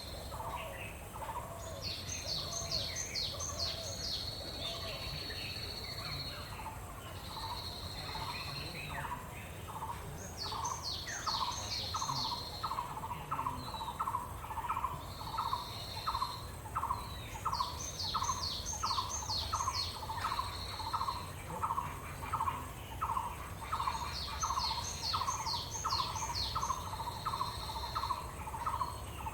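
Wild birds calling: one repeats a phrase of quick, high, falling notes ending in a held whistle about every seven seconds, while from about ten seconds in another gives a steady run of lower notes, roughly one and a half a second.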